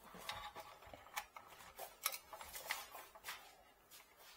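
Faint, irregular clicks and taps of small objects being handled, about a dozen, thinning out near the end.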